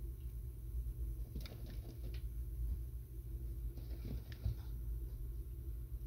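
Faint scratching and rustling as a savannah monitor grabs and shakes a hornworm on soil substrate, in two short flurries about a second and a half in and around four seconds in, over a steady low hum.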